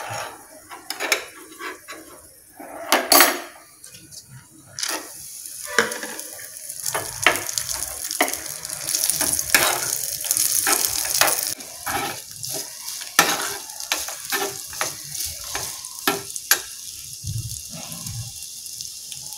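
Raisins frying in hot ghee in a small steel pan, sizzling, with a steel spoon clinking and scraping against the pan as they are stirred and scooped. The sizzle is loudest in the middle.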